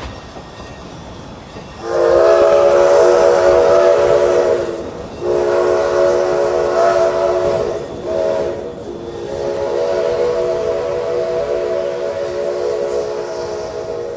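Steam whistle of Lima-built Shay narrow-gauge locomotive No. 7 "Sonora" blowing four blasts, long, long, short, long, the pattern of a grade-crossing signal. The last blast is held and fades away.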